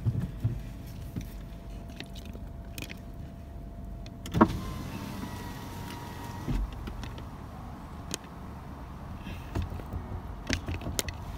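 Car idling, heard from inside the cabin as a low steady rumble. A sharp click comes about four seconds in, followed by a faint whine lasting a couple of seconds, with a few light clicks near the end.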